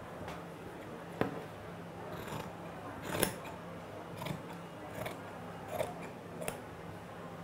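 Large tailor's shears cutting through khaki fabric: a sharp click about a second in, then a series of snips roughly one a second, the loudest about three seconds in.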